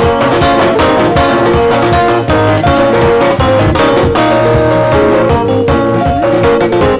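Worship band playing an instrumental passage: guitar chords over bass and drums, with a steady beat.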